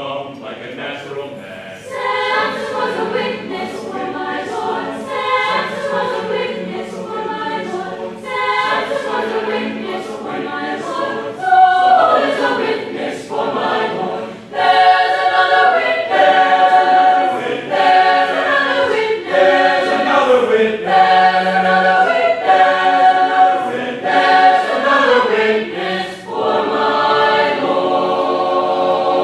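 Choir singing in phrases. It starts softly, swells about halfway through, and holds a sustained chord near the end.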